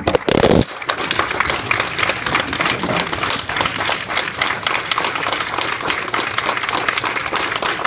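Audience applauding in a standing ovation, many hands clapping in a dense, steady patter. A short, louder burst of noise sounds right at the start.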